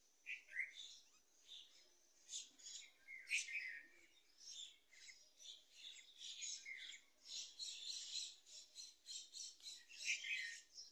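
Small birds chirping and twittering faintly, a dense run of short, high calls with a few that sweep downward.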